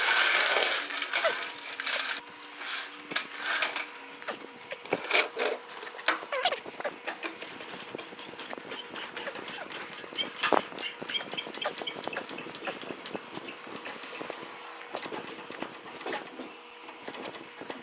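Floor jack being pumped to lift a truck, its pump handle squeaking in a quick, even rhythm for several seconds mid-way, after some clanks and scrapes of metal at the start.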